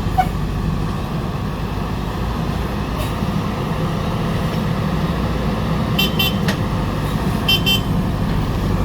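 Diesel engine of heavy earth-moving machinery running steadily with a low rumble. Two short, high-pitched toots come about six and seven and a half seconds in.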